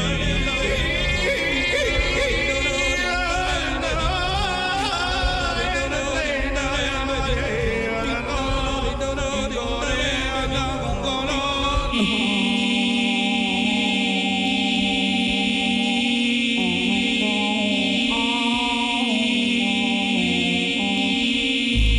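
A solo vocal performance heard through a PA: several sung voice lines layered at once with gliding, shifting pitches. About twelve seconds in it changes abruptly to a steady, held, choir-like vocal drone, with a short sung melody over it a few seconds later.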